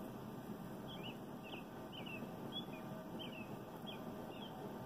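A songbird chirping: a string of short, quick slurred notes, about two a second, starting about a second in, over a low steady background rumble.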